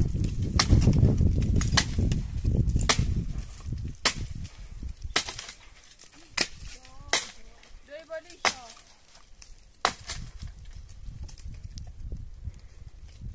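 A series of sharp knocks, about one a second and unevenly spaced, over a low rumble during the first few seconds.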